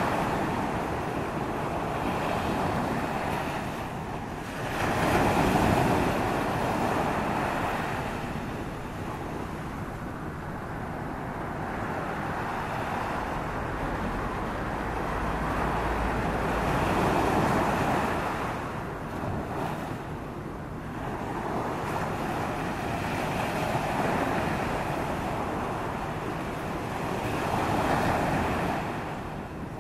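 Surf washing onto a beach, the rush of water swelling and fading every several seconds, with wind rumbling on the microphone.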